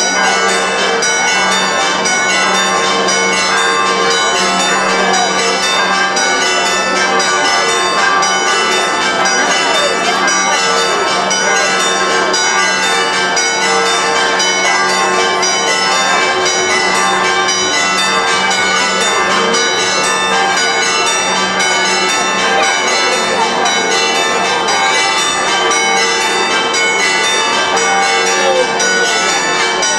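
Several church bells ringing together without a pause, over the voices of a large crowd.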